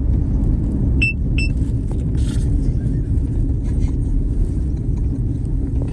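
Two short, high electronic beeps in quick succession about a second in, over the steady rumble of a car's engine and road noise heard inside the cabin.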